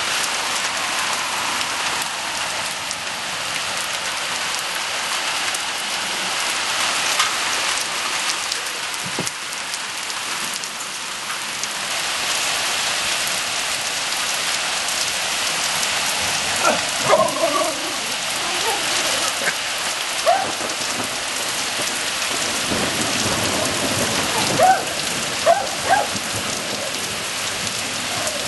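Steady heavy rain falling, with thunder rumbling low in the second half. A few short, sharp sounds stand out over the rain in the second half, the loudest a little before the end.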